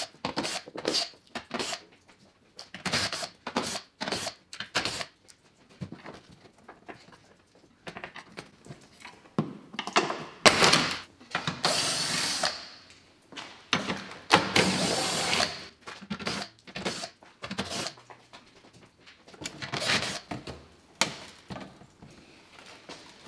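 Cordless driver with an 8 mm socket spinning out the screws of a car's plastic underbody panel, in many short bursts with a few longer runs of a second or so about halfway through.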